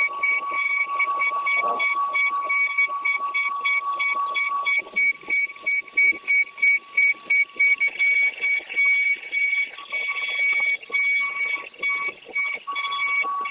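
CNC router running: a steady high whine with hiss, broken about midway by a run of quick regular pulses, about three a second.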